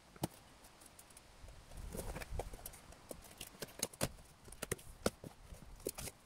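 Cardboard box being opened by hand: scissors snip through the packing strap and tape, giving a scatter of sharp clicks and snaps, with a short rustle of cardboard about two seconds in.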